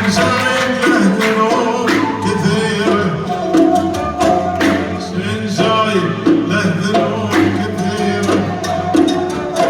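Gulf sawt song: a man singing over percussion, with sharp drum strikes at a steady beat.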